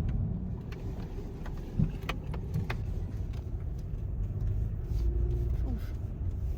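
Truck cabin road noise: a steady low rumble with scattered light clicks and rattles as the truck drives.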